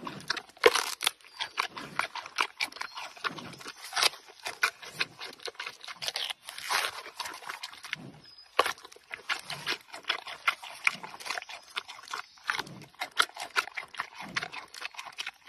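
Giant panda biting and chewing a bamboo shoot: a rapid, irregular run of crisp crunches and tearing sounds.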